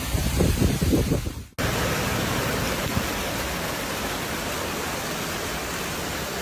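Storm footage sound: gusty wind rumbling on the microphone for the first second and a half, then a sudden cut to a steady, even rushing hiss of heavy rain and storm noise.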